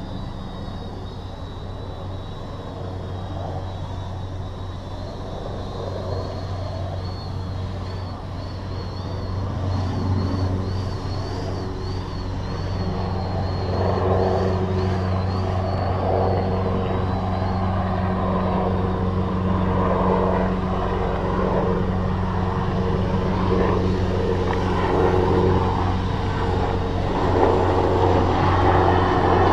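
Electric quadcopter's four brushless motors and 10-inch propellers droning steadily overhead while it holds position in the air, getting louder through the second half. A faint wavering high whine sounds over it in the first half.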